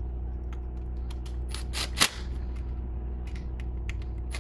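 Cordless drill-driver running down the small clutch pressure-plate bolts on a 125 cc ATV engine, with a cluster of sharp clicks about two seconds in and a few fainter ones later, over a steady low hum.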